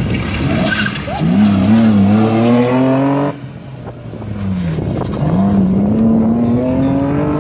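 BMW race car's engine revving hard under acceleration, its pitch climbing steadily. The sound breaks off abruptly about three seconds in, and a second climbing rev builds from about five seconds in.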